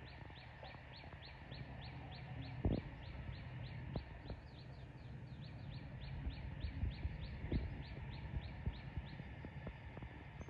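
A bird calling: a long even run of short, high, downward-sliding chirps, about three to four a second, stopping shortly before the end. Under it there is a low rumble with a few dull thumps, the loudest a little before a third of the way in.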